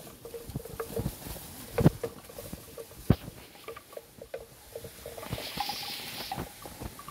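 Footsteps crunching irregularly through dry leaf litter and twigs, with foliage rustling. A short hiss of leaves brushing past, about five and a half seconds in.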